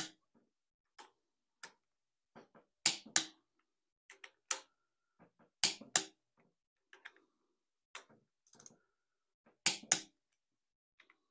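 Click-type torque wrench clicking off as cylinder head bolts on a Ford 200 inline six reach 65 ft-lb, the middle stage of the head-bolt torque sequence. Sharp clicks come mostly in pairs, three times, with fainter ticks between.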